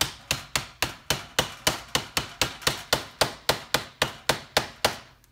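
Rapid, even tapping on a rebuilt starter motor's housing with a hand tool, about four sharp taps a second, seating the housing down over the armature.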